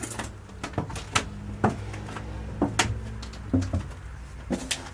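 Footsteps going down basement stairs: a string of sharp knocks, often in close pairs, about one step a second.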